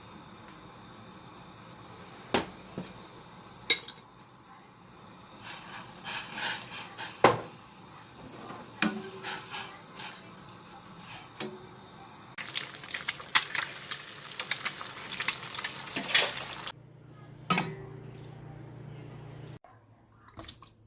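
Kitchen clatter: dishes and metal utensils clinking and knocking at irregular intervals. About two-thirds of the way through, a steady hiss runs for around four seconds and then cuts off suddenly.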